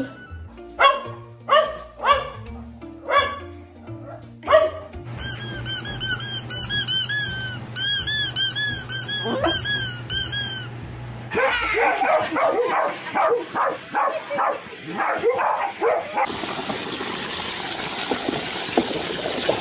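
Dogs barking in short repeated calls, with a run of high repeated squeaks in the middle, over music. Near the end a garden hose sprays water hard into a plastic paddling pool, a loud steady hiss.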